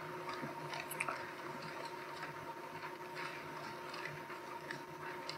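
A group of people standing up from folding chairs: scattered light knocks, creaks and rustling over a faint steady hum.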